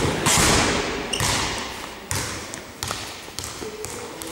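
A football kicked hard, the loudest sound, followed by several more thuds about a second apart, all echoing around a large sports hall.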